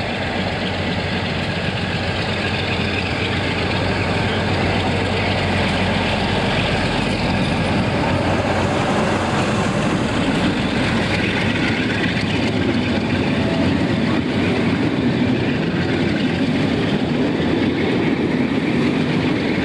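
Class 47 diesel locomotive hauling InterCity coaches past close by: the locomotive's engine gives a steady low hum at first, then the rolling rumble of the coaches' wheels on the rails grows as they go by.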